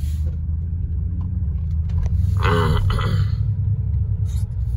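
Steady low rumble of a car driving slowly, heard from inside the cabin. A short, louder pitched sound comes about two and a half seconds in.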